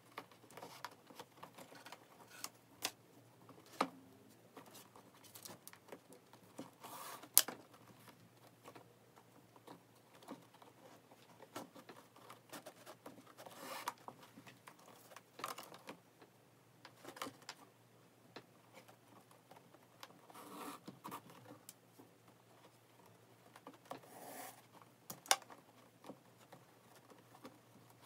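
Shoelaces being threaded and drawn through the eyelets of new Vans sneakers: irregular scratchy zipping rubs and rustles, with scattered sharp clicks, the loudest about 7 s and 25 s in.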